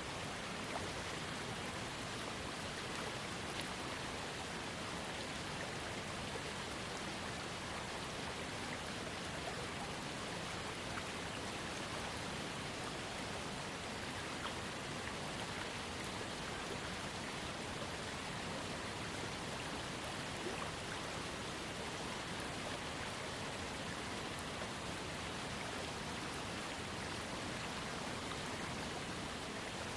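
Waterfall fed by a small creek, water falling and splashing in a steady, even rush with fine droplet patter.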